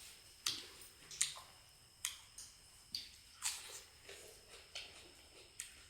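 Close-miked eating: a person chewing and biting food, with a string of short, wet, crisp smacks and crunches, roughly one every half second to a second.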